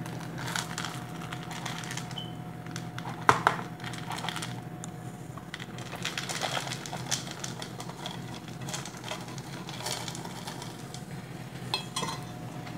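Dry dog kibble being scooped and poured into feeding bowls: scattered rattles and clicks of the pellets and the scoop, the loudest about three seconds in, over a steady low hum.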